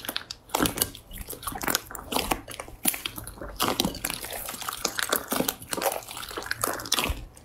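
Hands squeezing and kneading a bowl of fluffy slime: wet squishing with many small, irregular pops and crackles as air pockets in the slime burst.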